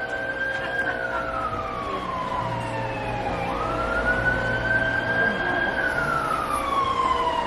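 An emergency vehicle siren wailing, its pitch sliding slowly up, holding, then falling away, in two long cycles.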